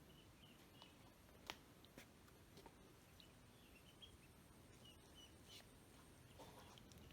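Faint high peeping of ducklings, short chirps scattered irregularly, with a couple of soft clicks about a second and a half in and again half a second later.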